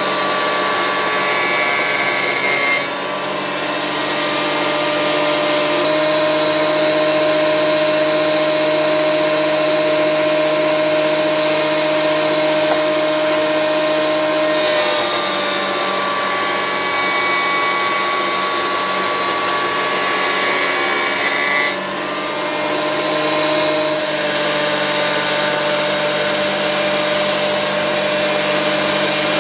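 Titan 1500 W jointer-planer running with a steady motor whine, planing a spalted beech blank square. The sound turns harsher and hissier as the cutter block bites the wood for a few seconds at the start and again for about seven seconds midway.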